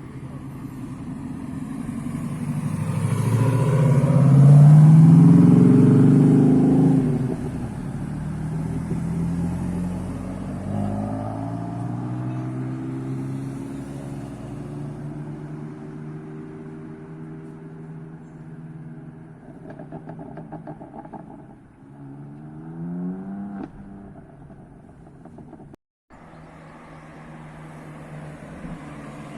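Tuned cars' engines and exhausts accelerating past one after another, rising in pitch as they rev. The loudest comes about four to seven seconds in, a second car pulls away steadily a few seconds later, and near the end there are several quick rev blips before the sound cuts off abruptly.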